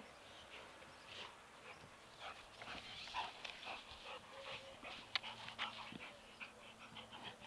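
Labrador retriever nosing and mouthing a soccer ball on grass, making a string of short, irregular scuffs and snuffles with one sharper click about five seconds in.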